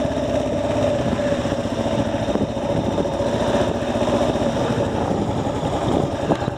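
Kawasaki KLR dual-sport motorcycle's single-cylinder four-stroke engine running steadily while the bike is ridden on a test ride on dirt.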